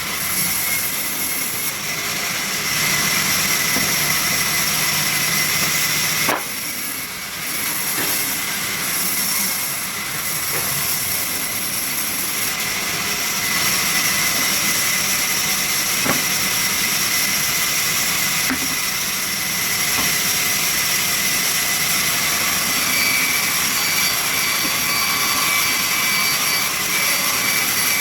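Sawmill machinery running with a steady mechanical whirr, with a brief dip and a click about six seconds in.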